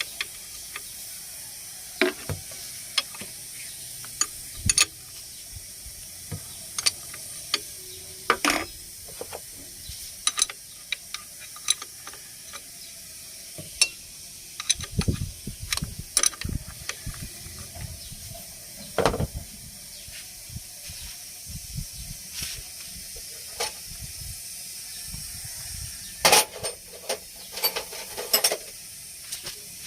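Hand tools clicking and clanking irregularly during work on an engine's drive belt, over a steady high hiss, with a busier run of knocks near the end.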